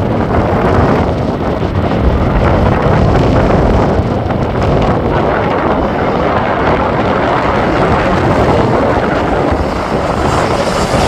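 Strong gusty wind buffeting the microphone in a loud, steady rush with a low rumble.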